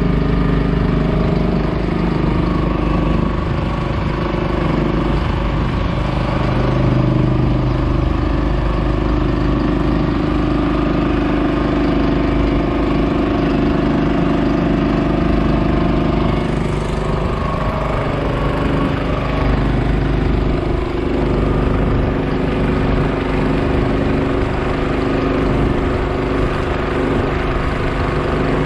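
Motorboat engine running steadily, pushing a small canopied boat along a canal.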